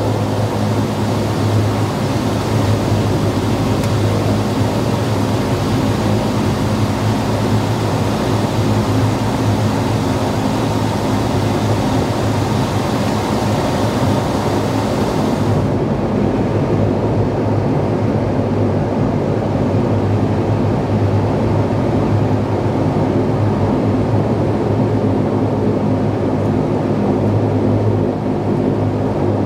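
Steady cabin drone of a Dash 8-Q300's Pratt & Whitney Canada PW123 turboprop engines and propellers at taxi power, a low hum with a strong propeller tone. About halfway through, the hiss above the hum drops away abruptly.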